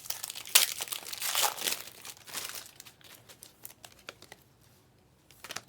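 Trading-card pack wrapper crinkling and tearing as a pack is handled and opened, loudest in the first couple of seconds. It then thins to a few faint clicks of cards being handled.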